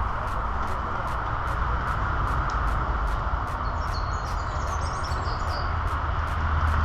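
Steady outdoor background noise with a low rumble, and a short bout of bird twittering about four to five seconds in.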